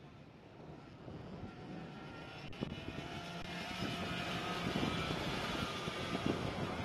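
Engines droning, with several pitches overlapping, growing steadily louder.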